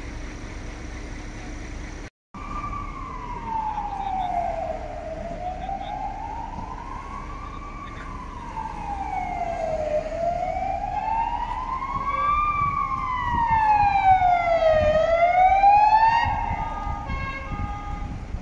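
Emergency vehicle siren wailing, sweeping slowly up and down in pitch and growing louder. Near the end it switches to a quicker stepped pattern of alternating tones. Street noise and a brief dropout come before it starts.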